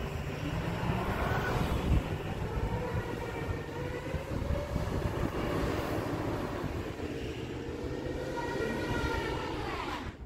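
Tow truck stuck in deep snow, its engine revving up and down as its wheels spin, with a whine that rises and falls in pitch. The sound drops away suddenly near the end.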